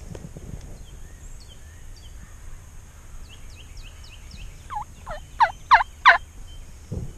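A turkey yelping: a run of five loud, separate notes, about three a second, growing louder about five seconds in. Faint high chirps of a small bird come before it, and there is a low thump near the end.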